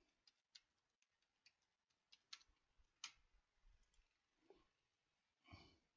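Near silence with faint, irregular computer keyboard clicks as a password is typed, and a brief soft noise near the end.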